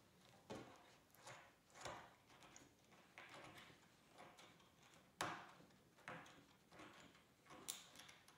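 Faint small clicks and short scrapes of a split ring being worked onto a clevis pin through a wooden mast, the loudest click about five seconds in.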